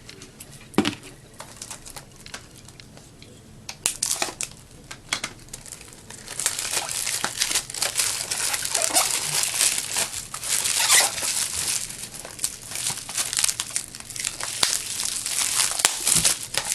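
Plastic wrapping on a Blu-ray case crinkling and crackling as it is opened and pulled off. A few separate clicks and rustles come first, then about six seconds in it becomes a dense, continuous crinkling that runs for around ten seconds.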